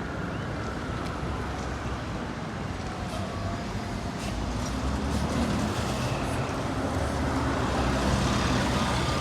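Road traffic: a steady low engine rumble with tyre noise from passing vehicles, growing a little louder in the second half.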